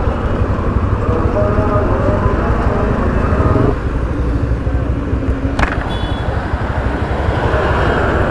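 Taro GP V3 motorcycle riding through busy city traffic: a steady engine and wind rumble on the rider's camera microphone, with the noise of surrounding vehicles. There is one brief sharp click about five and a half seconds in.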